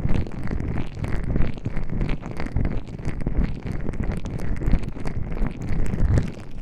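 Gloved hands rubbing gel and baby oil over the microphone's ears for an ear massage: continuous slippery rubbing close up, with a deep rumble and many small wet clicks.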